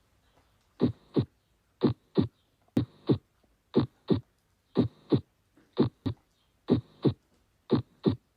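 Heartbeat sounds: a steady lub-dub, two short thuds about a third of a second apart, repeating eight times at roughly one beat a second.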